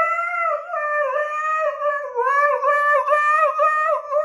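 A dog howling: one long wavering howl, then from about two seconds in a quick run of short rising-and-falling notes, about three a second.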